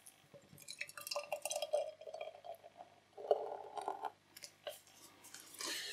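Beer poured from a can into a tulip glass, glugging and splashing as the glass fills and foams, then a few light clinks near the end.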